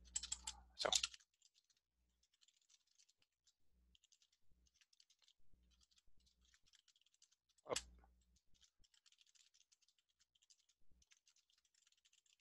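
Faint computer keyboard typing: scattered soft keystrokes, with a few louder clicks in the first second and one sharper click a little past the middle.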